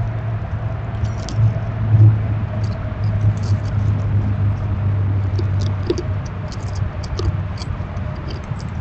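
Squirrel chewing and crunching: scattered short, sharp clicks over a steady low hum.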